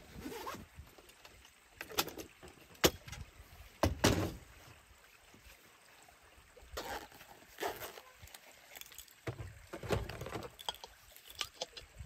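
Irregular knocks and clicks of objects being handled, the sharpest about three seconds in and a cluster around four seconds.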